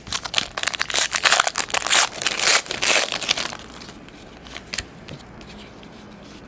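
Foil wrapper of a 2011 Topps UFC Title Shot trading-card pack being torn open and crinkled for about three and a half seconds, then quieter handling of the cards with a few light clicks.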